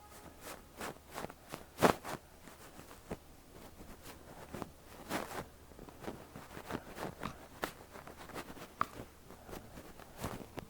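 Fluffy down ear duster brushing over a microphone's ear: a steady run of soft, irregular scratchy rustles and crackles, with a louder one about two seconds in.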